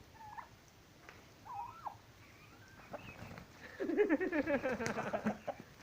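Turkey calling: a couple of short high calls in the first two seconds, then about four seconds in, a loud, fast run of rapidly repeated notes lasting about a second and a half.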